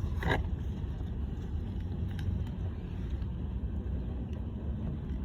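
Steady low rumble of a long freight train rolling past, with a couple of faint clicks.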